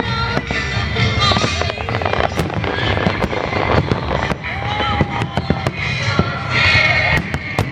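Aerial fireworks going off, with many sharp pops and crackles in quick succession over music.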